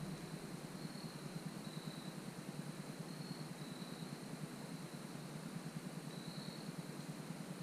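Quiet outdoor background: a steady low hiss, with faint, thin, high-pitched notes repeating about every second, a higher note followed by a slightly lower one. No deer grunt or snort is evident.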